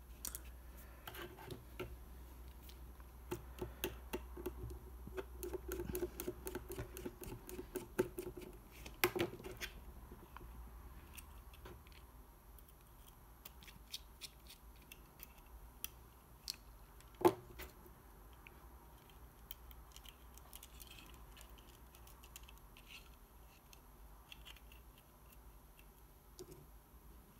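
Small hand-work noises of 3D-printed plastic model parts being handled, tapped and clicked together, with light scratching, and a small screwdriver driving a tiny screw into the plastic seat. Rapid clicks fill the first ten seconds, thin out after, and one sharp click stands out about seventeen seconds in.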